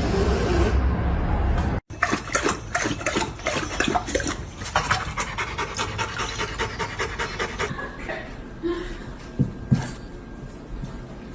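A dog panting fast, in a quick, even run of breaths lasting several seconds, after a low rumble that cuts off about two seconds in.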